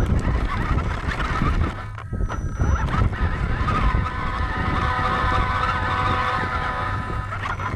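Scale RC truck's motor and drivetrain whining over a low rumble and crackle from the chassis and tyres, heard from a camera riding on the truck. The whine wavers in pitch with the throttle and turns steadier and clearer from about four seconds in.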